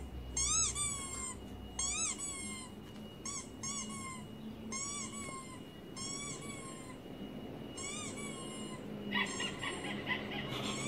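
Squeaky-toy sounds played through a laptop speaker: a run of short squeaks, each rising then falling in pitch, one or two a second and often in pairs, with a denser cluster of higher squeaks near the end.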